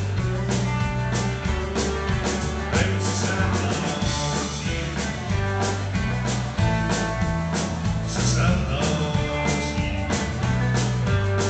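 Live country-rock band playing: electric and acoustic guitars over bass guitar and a drum kit keeping a steady beat.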